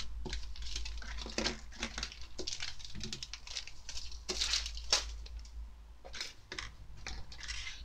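Crinkling and rustling of small plastic and foil sachets being picked up, shuffled and set down on a tabletop, in many short irregular crackles.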